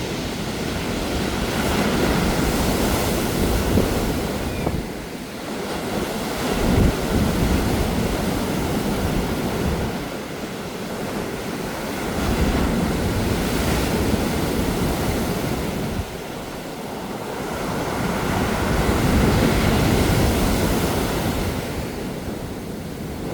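Sea waves breaking on a pebble beach, the surf swelling and easing about four times, with pebbles rolling and rattling in the wash.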